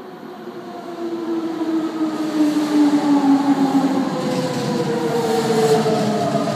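Toei 5300 series electric train pulling into the station and braking: its traction motor whine falls steadily in pitch as it slows, over the rumble of wheels on rails. It grows louder about a second in as the cars come alongside.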